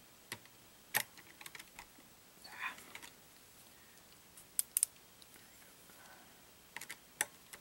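Scattered small clicks and ticks of a hex driver working a screw into the plastic chassis of a Traxxas Rustler 4x4 RC truck, with parts knocking lightly as it is handled; a quick pair of ticks past the middle and a small cluster near the end.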